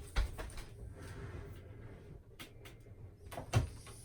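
Hard knocks and light scraping from hands working on a fitting, with two sharp thumps: one just after the start and one about three and a half seconds in.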